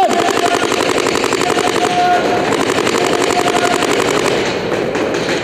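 Paintball markers firing rapidly in long, unbroken strings, many shots a second.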